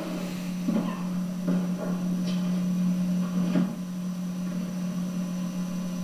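A steady low hum, with a few faint knocks now and then.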